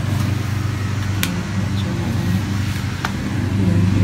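Steady low mechanical hum of a running machine, with two sharp clicks about a second and three seconds in.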